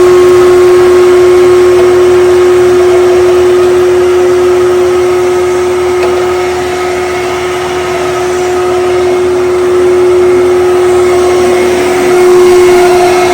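Kenmore/Fantom Destiny Plus upright bagless vacuum cleaner running steadily, a loud motor whine with one clear steady pitch over a rushing airflow hum. The level dips slightly for a few seconds midway.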